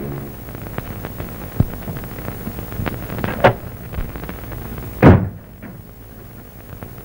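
A few dull knocks over the steady hiss of an old film soundtrack, the loudest a thump about five seconds in.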